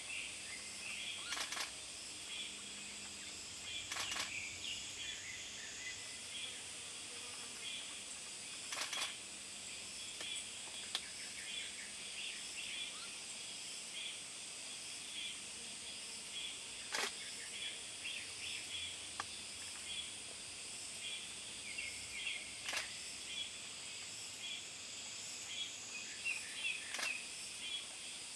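Woodland ambience: a steady high-pitched insect buzz with many short, faint bird chirps throughout, and about six sharp clicks scattered across it.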